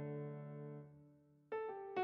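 Background piano music: a held chord fades away, then new notes are struck near the end.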